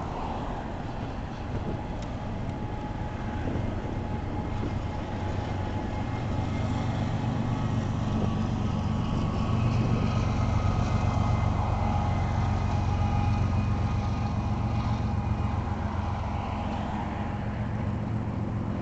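Union Pacific intermodal freight train rolling past on a bridge, the wheels running steadily over the rails. A mid-train distributed-power diesel locomotive passes about halfway through, its engine hum swelling and then easing off toward the end.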